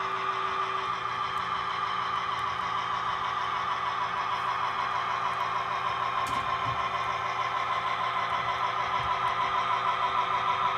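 Model train locomotive running on the layout: a steady engine drone with a rapid pulse, growing a little louder near the end, with a single click about six seconds in.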